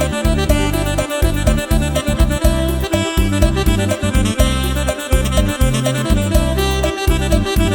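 Upbeat Isan lam phloen dance music played on an electronic keyboard, with a reedy lead over heavy bass and a steady, bouncy drum beat.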